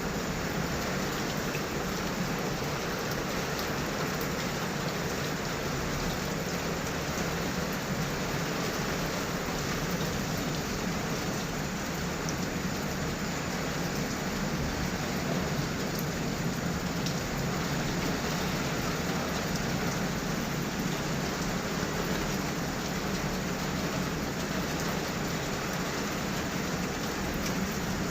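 Heavy rain falling steadily, an even hiss of drops with faint scattered ticks.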